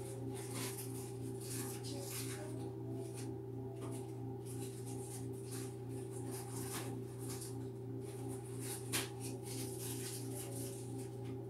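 A steady low hum, with a fainter pulsing tone above it and scattered faint rustles. There is one sharp tick about nine seconds in.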